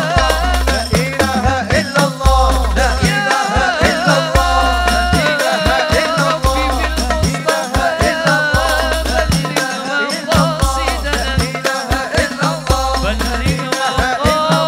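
Hadrah ensemble: men's voices singing a devotional melody into microphones, over frame drums (rebana) and a darbuka beating a steady rhythm with repeated deep bass strokes.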